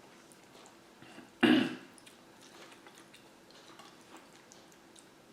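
A person coughs once, a short, sharp throat-clearing cough about a second and a half in. Faint small ticks come before and after it.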